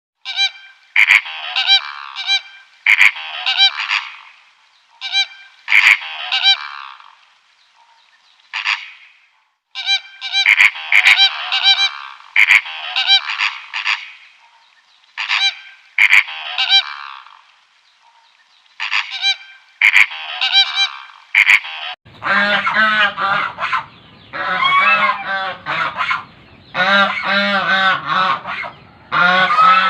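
Geese honking in repeated bouts of loud calls. About two-thirds of the way through, the sound changes to a denser stretch of rapid, overlapping honks from several birds.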